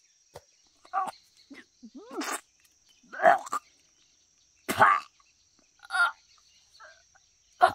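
Short animal calls, loud and irregular, about one every second or so, over a steady high-pitched insect drone.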